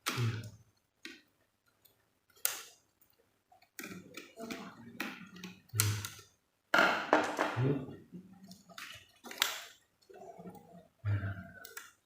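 Irregular clicks, taps and scrapes of a small screwdriver and hands working on small parts inside an opened laptop, as the M.2 SSD is unscrewed and pulled from its slot.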